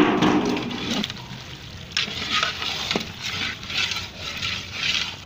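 A long metal ladle stirring a large metal pot of boiling eggs. It opens with a ringing clang against the pot, gives sharp knocks about two and three seconds in, then makes repeated swishing scrapes through the water.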